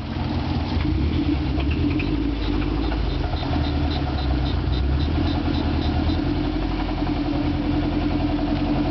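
Subaru flat-four boxer engine idling with rod knock, the sign of a failed connecting-rod bearing; the engine is finished.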